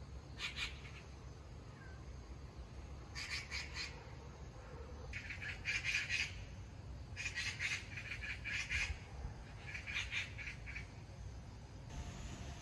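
A bird calling in short, rapid chirping phrases, about a second each and repeated every second or two, faint over a steady low background hum.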